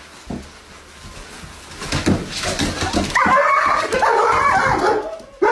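German Shepherd whining and yelping in a high, wavering voice for about two seconds, starting a little past halfway, after a few soft thumps.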